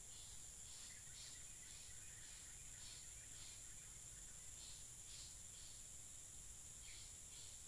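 Faint rural outdoor ambience: a steady high insect drone, with short high chirps recurring irregularly, often in pairs, over a low rumble.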